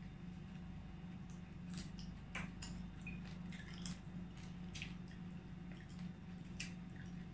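Eating with bare hands: scattered small clicks and wet squishing as fingers pick meat off a roast pig (lechon) and food is chewed, over a steady low hum.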